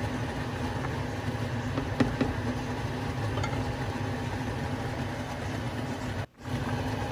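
Steady low hum and hiss of a pot of chicken rice porridge simmering on a gas stove, with a ladle clicking against the pot about two seconds in. The sound cuts out for a moment near the end.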